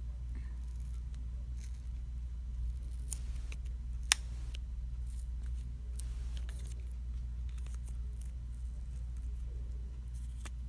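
Small clicks and light scraping of hand tools on a smartphone's small parts as the charging port board is worked loose, with one sharp click about four seconds in. A steady low hum lies under it.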